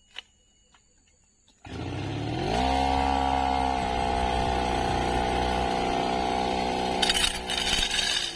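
Brush cutter engine coming in suddenly about a second and a half in, revving up and running steadily at high speed, with a brief rough hiss near the end, then the revs starting to drop as the throttle is let off.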